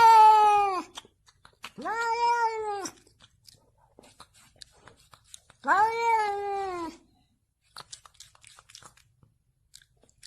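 A domestic cat meowing three times, long drawn-out meows of about a second each. The first is already under way at the start, the second comes about two seconds in and the last about six seconds in. Faint light clicks fall in the pauses.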